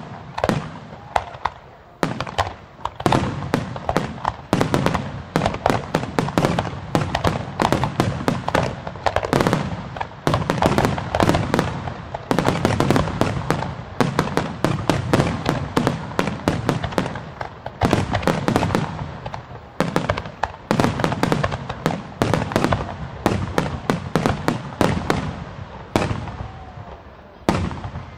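Fireworks display in a dense barrage: aerial shells bursting one after another, many bangs a second with crackle between them, thinning to a few separate booms near the end.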